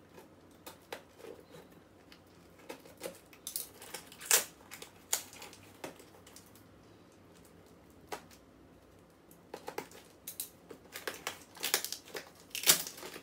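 Packaging being unwrapped by hand: crinkling, tearing and rustling in scattered short crackles, busiest about four to five seconds in and again near the end.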